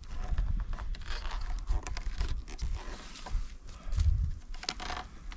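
Crackling, crunching and scraping of close handling and movement, over a low rumble of handling noise on the microphone that stops abruptly at the end.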